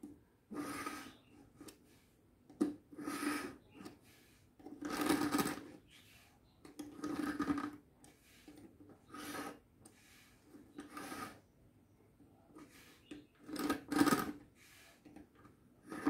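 A steel kitchen knife blade drawn again and again through a manual pull-through knife sharpener with sharpening wheels, each pull a short grinding stroke of metal against the wheels, about one every one to two seconds with short pauses between. The blade is being sharpened.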